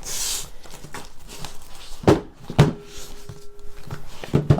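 Hand tools and their packaging being handled: a brief rustle of packaging, then several sharp clicks and knocks, two a little over two seconds in and two more near the end.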